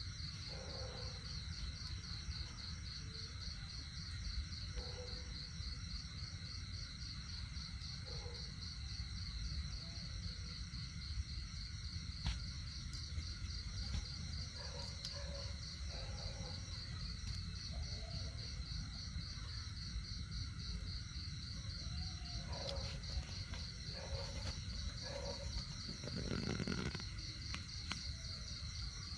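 Insects, crickets by the sound of it, trilling steadily in a fast, even pulse, over a low rumble of background noise.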